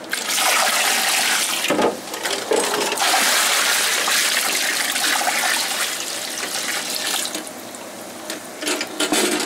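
Water pouring from a large plastic container into a deep utility sink, splashing onto the water already in it. The pour runs steadily, then eases off about seven seconds in, with a few last splashes near the end.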